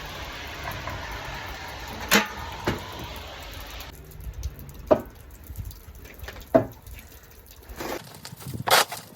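Snow and ice being knocked and scraped off a snow-covered van: a steady rushing noise that stops abruptly about four seconds in, and a handful of sharp scrapes and knocks at uneven intervals.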